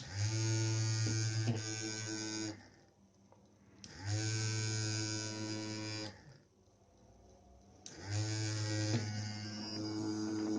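Small electric motor driving a home-made three-phase generator, buzzing at a steady pitch in three runs of about two seconds each. Each run starts and stops abruptly, and the pitch rises briefly at each start as the motor spins up.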